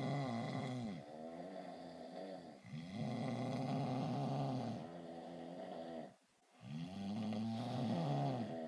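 A man snoring: long, pitched snores that rise and fall, with three loud ones about three seconds apart and softer snoring breaths between them.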